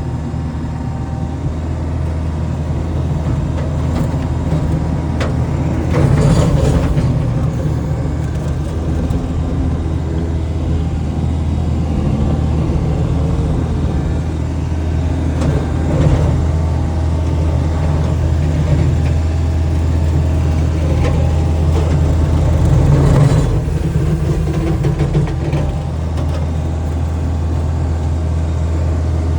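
Skid steer engine running steadily while its brush cutter works, with brief louder, noisier swells about 6, 16 and 23 seconds in.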